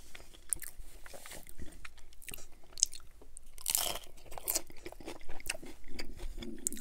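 Crunching and chewing of a crisp corn hard-shell taco: small crackles of chewing throughout, with one loud crackling bite into the shell about four seconds in.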